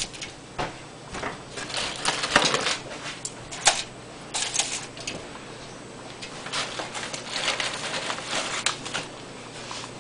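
Aluminium foil crinkling and chips rustling as they are laid by hand onto a foil-lined baking sheet: irregular clusters of small crackles and clicks.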